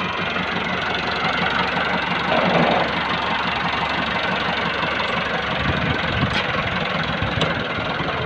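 A 2010 Massey Ferguson 375 tractor's four-cylinder diesel engine runs steadily under load as it drags a spring-tine cultivator and a wooden plank leveller through tilled soil.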